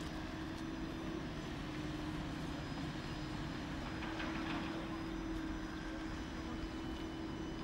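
Alstom Citadis tram passing slowly at close range: a steady electric hum over the low rolling noise of the wheels on the rails, the hum growing a little stronger about four seconds in.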